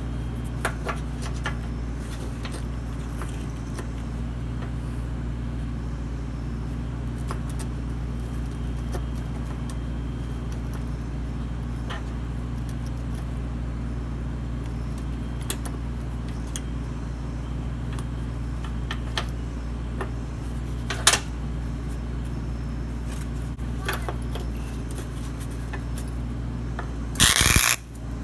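Light metallic clinks and clicks of steel parts and tools being handled over a steady low hum. Near the end a loud, harsh burst of about a second starts suddenly.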